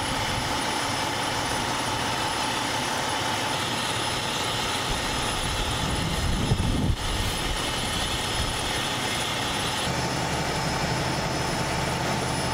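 Engine running steadily with a constant whine over a broad drone. A louder low rumble swells briefly about six to seven seconds in, and the low hum shifts and steadies near the ten-second mark.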